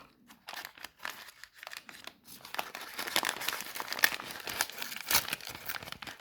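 Sealed packaging of a new lock being torn open and crinkled by hand, a run of crackles that grows busier about halfway through.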